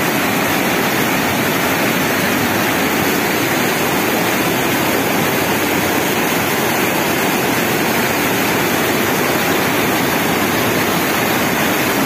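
Loud, steady rush of churning white water pouring past.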